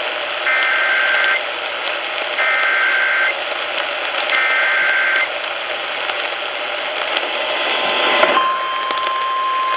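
Emergency Alert System SAME header heard through a radio over static: three one-second bursts of two-tone data signal, about two seconds apart. About eight seconds in, the steady single attention tone starts, announcing a warning.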